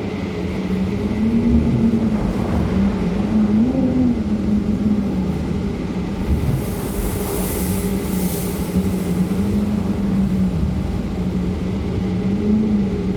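Strong wind: low rumbling gusts on the microphone under a steady, slowly wavering howl, with a brief hiss about halfway through.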